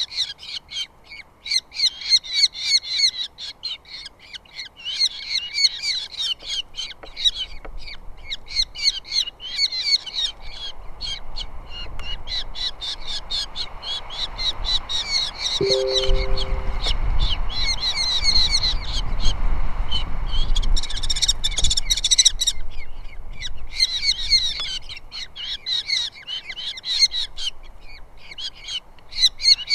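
Ospreys calling: bouts of rapid, high whistled chirps repeated over and over, with short pauses between series. A low rumble comes up in the middle for several seconds.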